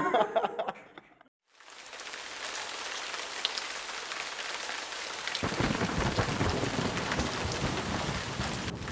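Steady rain sound with a low thunder-like rumble joining about halfway through, starting after a brief drop to silence. A short burst of a person's voice comes at the very start.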